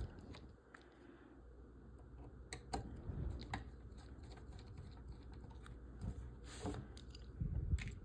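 Irregular small clicks and taps of model-kit frame parts being handled and screwed together, with a few louder knocks and a brief scrape about six and a half seconds in.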